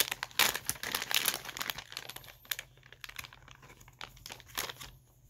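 Plastic package of Gambler Little Otter soft-plastic baits crinkling as it is handled. The crackling is densest in the first second or two and thins out after that.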